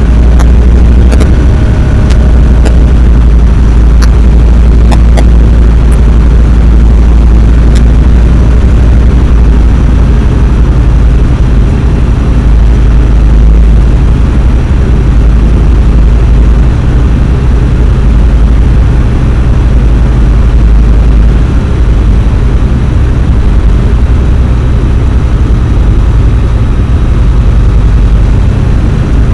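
Steady cockpit noise of a Tecnam P2002 in flight: its four-cylinder Rotax engine and propeller running at a constant setting, heard from inside the cabin as a loud low rumble. A few faint clicks come in the first eight seconds.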